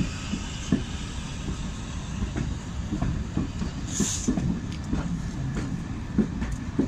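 Wheels of a diesel-hauled Mark II passenger coach rolling slowly over the track, heard from an open carriage window: a low rumble with irregular knocks and clicks over rail joints and pointwork. A short high hiss comes about four seconds in.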